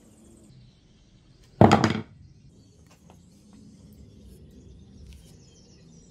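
A heavy steel sledgehammer knocking once against wooden floorboards as it is handled: one loud knock lasting under half a second, about one and a half seconds in.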